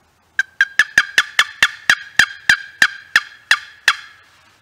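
Wooden box turkey call worked by hand: a run of about fourteen sharp, turkey-like notes, quick at first and slowing a little toward the end.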